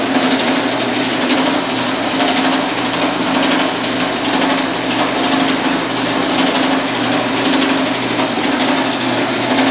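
Homemade belt-driven power hammer running at speed, its ram hammering a sheet-metal piece between the dies in a rapid, steady rattle over a constant hum from the motor and belt drive.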